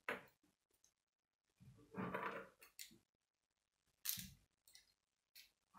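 Plastic K'nex pieces clicking and rattling as a model car is handled: a sharp click right at the start, about a second of rattling and rubbing about two seconds in, and another sharp click about four seconds in.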